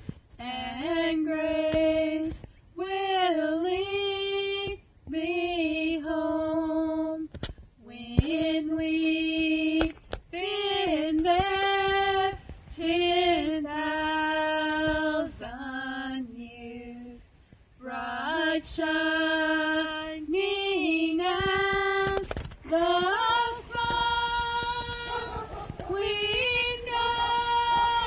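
A woman singing a hymn solo and unaccompanied, in phrases of long held notes with short breaths between them.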